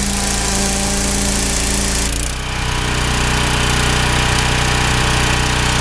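A 3000 psi pressure washer's small engine runs steadily while the turbo-nozzle jet hisses against a deer hide. About two seconds in the spray stops, and the engine keeps running.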